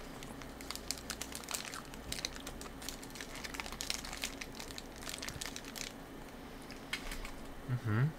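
Crinkling of a candy wrapper being handled, in scattered, irregular crackles over a faint steady hum. A short hum from a person's voice comes near the end.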